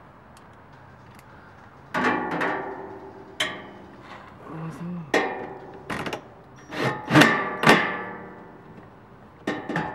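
Sharp knocks on the metal underbody panels of a Toyota 4Runner as they are fitted back on, about eight of them starting two seconds in, each ringing briefly.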